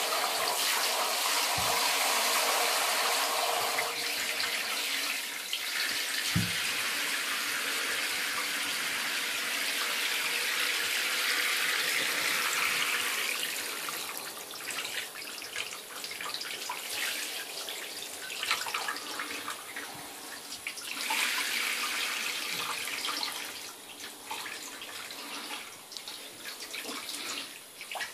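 Hand-held shower spraying water onto the bathtub floor and a wet cat, a steady rushing hiss that turns quieter and more uneven, with scattered splashes, after about 14 seconds.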